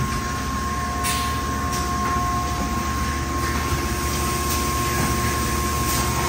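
Industrial plastics-processing machine running: a steady mechanical hum with a constant high whine, and a few short hisses.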